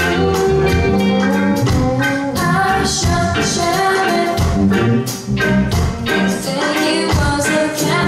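Live band playing a reggae-style rock cover, with female voices singing over electric guitars, keyboard, bass and drums, a steady drum beat underneath.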